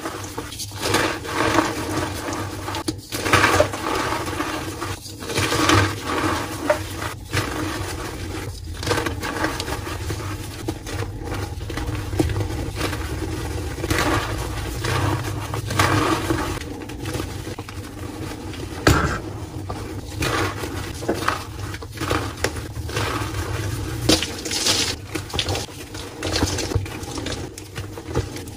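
Blocks of gym chalk crushed and crumbled by hand: continuous dry, powdery crunching, with sharper cracks as pieces snap apart.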